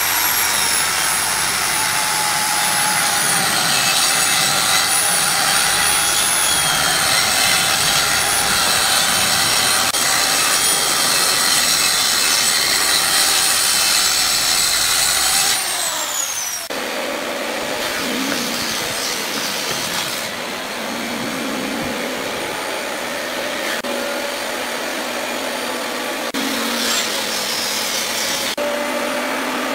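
Dekton handheld circular saw cutting through a wooden tabletop panel along a clamped straightedge: a steady high whine with cutting noise for about fifteen seconds, then the motor winds down with a falling pitch. A quieter steady machine noise follows, and a motor winds up again near the end.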